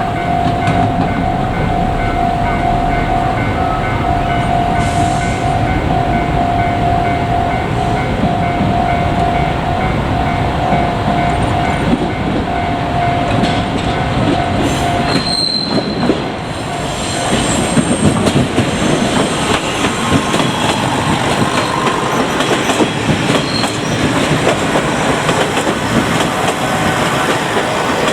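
Two-car JR Kyushu KiHa 147 and KiHa 47 diesel railcar train passing a level crossing. The crossing's warning bell rings steadily and stops about halfway through, and a brief high wheel squeal follows. Then the wheels clatter rhythmically over the rail joints as the cars go by.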